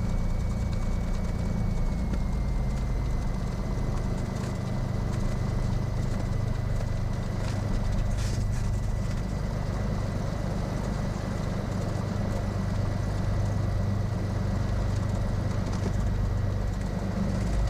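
Cessna 182 Skylane's piston engine running steadily at low power while taxiing, a constant low drone heard inside the cabin, with a steady thin high whine alongside.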